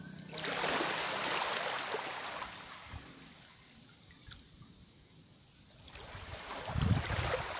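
Shallow seawater washing over a rocky reef flat: a hiss that swells and fades, goes quiet, then swells again, with a few low thumps near the end.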